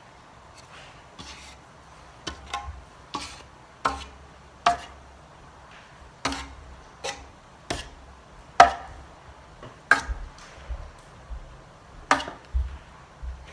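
A Hunter 1886 Series ceiling fan with four blades spinning, giving a series of about a dozen sharp clicks and knocks at uneven intervals, each with a short ring, over a faint low hum.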